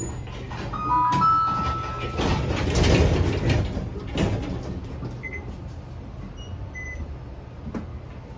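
Interior of a low-floor tram standing at a stop with its doors open. There are short electronic beeps about a second in and a few fainter ones later. In between is a louder stretch of shuffling and knocking around the middle as a passenger boards.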